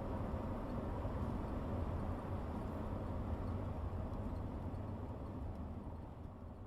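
A vehicle driving on the road: a steady low rumble of engine and road noise that fades out near the end.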